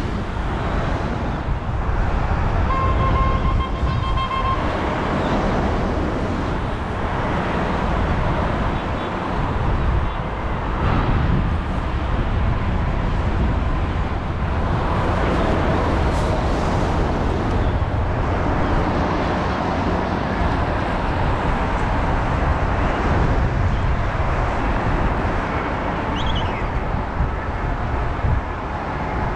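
Wind rushing and buffeting on a GoPro action camera's microphone during a low paraglider glide, mixed with road traffic from the highway below.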